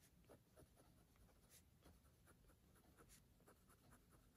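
Faint scratching of a pen writing on the paper of a notebook, a string of short irregular strokes.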